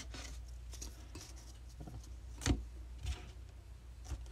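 Baseball trading cards being handled on a table: faint rubbing and sliding of card stock, with a sharp tap about two and a half seconds in and a lighter one soon after.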